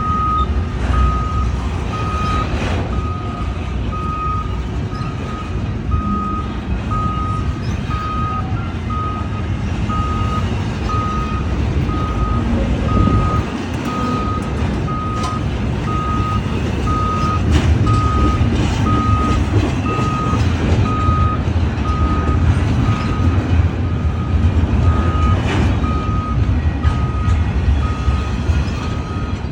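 Freight cars rolling slowly past on the rails, a steady low rumble with scattered clicks and squeaks from the wheels. Over it an electronic warning beep repeats at one pitch about one and a half times a second.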